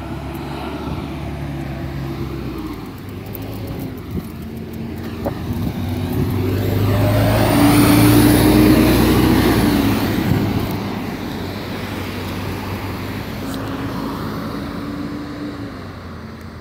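A New Flyer D40LF city bus with a Detroit Diesel Series 50 engine drives past close by. Its diesel engine grows louder to a peak about eight seconds in, then fades as the bus moves away, over the sound of other road traffic.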